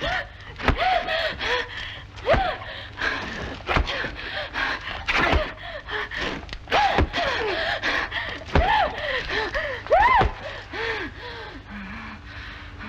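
A gagged woman's muffled moans and whimpers through tape over her mouth: a string of short cries rising and falling in pitch every second or two, with breathy gasps, fading out near the end.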